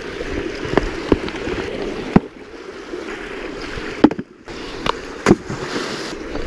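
Steady rush of a shallow, fast-flowing stream, with several sharp knocks scattered through it and a brief dropout about four seconds in.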